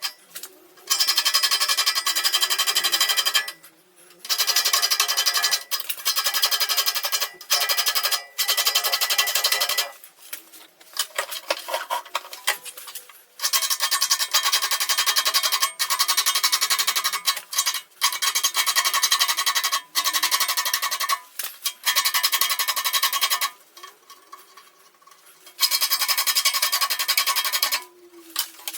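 A file rasping across the teeth of a large crosscut saw blade in long strokes with short pauses between them, steady high tones ringing through the rasp as the steel plate sings under the file. The teeth are being sharpened.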